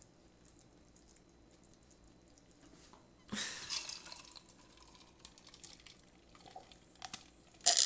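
A drink sloshing in a large glass jar as it is lifted and drunk from, with small clicks of glass. Near the end a sharp, loud clink, the glass jar knocking down onto the wooden table.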